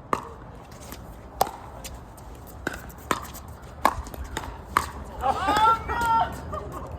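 Pickleball rally: paddles strike the hard plastic ball in six sharp pops over about five seconds. A player's shout follows near the end, with wind rumbling on the microphone throughout.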